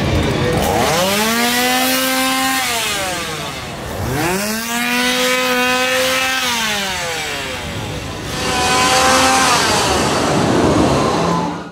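A chainsaw engine revved up hard three times, each time climbing to a steady high pitch, holding for a second or two and dropping back. The third rev starts about eight seconds in and is cut off abruptly at the end.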